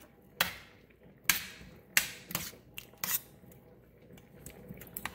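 Metal spoon knocking and scraping against a stainless steel frying pan while stirring meatballs in thick tomato sauce: a handful of sharp, irregular clinks, the loudest in the first three seconds and fainter ones towards the end.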